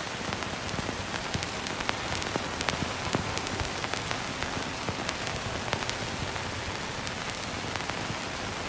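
Old film soundtrack noise: a steady hiss scattered with irregular crackles and pops.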